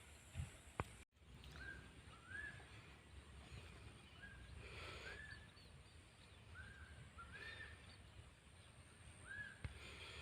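Faint outdoor rural ambience with a bird repeating a short two-note call, each note rising, about every two and a half seconds. A single click and a brief dropout come about a second in.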